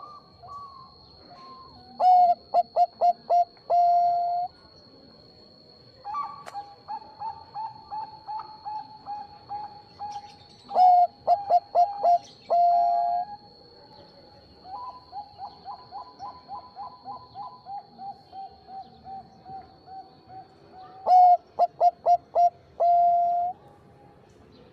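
Bangkok perkutut (zebra dove) cooing: three loud phrases, each a quick run of short notes ending in a drawn-out coo, about two, eleven and twenty-one seconds in. Between them a softer dove repeats notes in long, even rolls.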